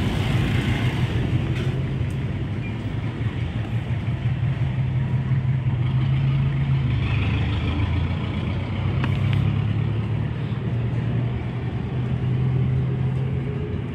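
Steady low drone of a motor vehicle engine running close by, shifting slightly in pitch, over general street noise.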